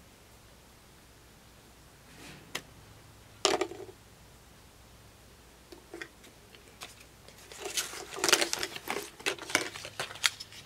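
Cosmetics packaging and products being handled: after a quiet start, a few sharp clicks and a knock, then a busy run of clicking and rustling over the last three seconds.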